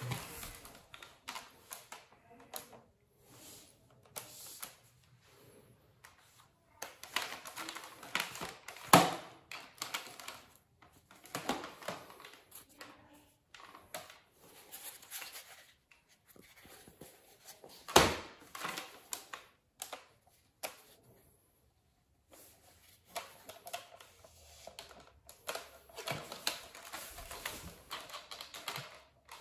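Plastic clicks, rattles and knocks from a Nerf Fortnite rocket blaster being handled and loaded with a foam rocket, with two sharper, louder clacks about nine and eighteen seconds in.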